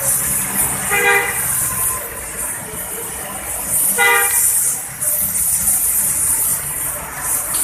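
A bus's telolet horn giving two short toots about three seconds apart, over a steady hiss and low engine rumble.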